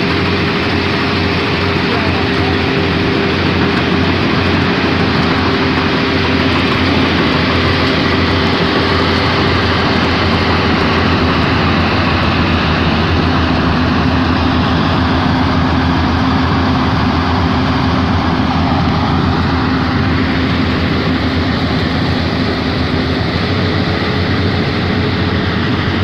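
K-BOS 880 multi-crop combine harvester running steadily, its engine and threshing machinery giving a loud, even drone with a steady hum in it.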